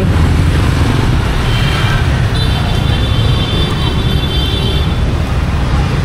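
Street traffic with a steady low rumble; a high, thin held tone sounds over it for about two and a half seconds in the middle.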